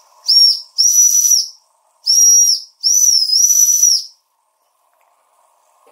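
Jensen 20G toy steam engine's boiler whistle blown in four high-pitched toots, the last one the longest with a brief dip in pitch, the boiler being up to steam. The toots stop about four seconds in.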